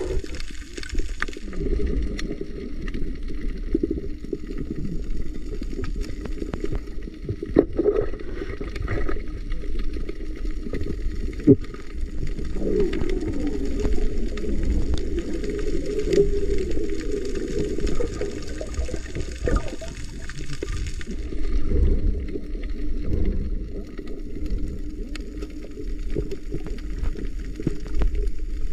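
Muffled water noise picked up underwater by a camera in a waterproof housing: a steady low rumble of moving water with gurgles and a few sharp knocks.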